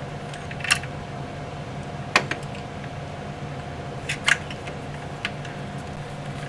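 A few sharp metallic clicks and clinks of hand tools and bolts as a camshaft sprocket is unbolted, scattered and irregular, over a steady background hum.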